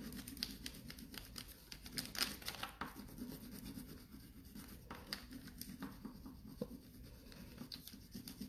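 Wax crayon scratching back and forth on paper: a quiet, irregular run of short strokes.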